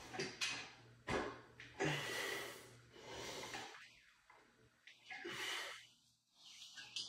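A man's heavy breathing, a run of forceful breaths in and out with the effort of a set of seated dumbbell lateral raises. There is a sharp click about a second in.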